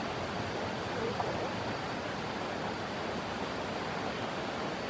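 Steady rushing of a flowing river, an even hiss of moving water.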